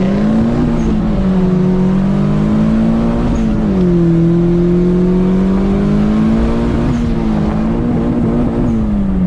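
Turbocharged Honda D16 single-cam four-cylinder engine at full throttle in a launch, revs climbing in each gear and dropping sharply at upshifts about a second in, about three and a half seconds in, and about seven seconds in, then falling away near the end as the throttle comes off.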